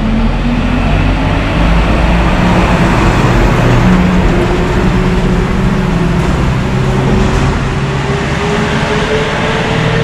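Road traffic: a motor vehicle's engine running close by, a steady low hum with a tone that rises slowly in pitch over the second half.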